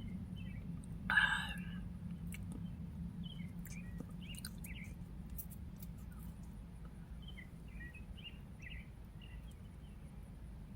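Scattered faint bird chirps over a low steady hum, with one short louder noise about a second in.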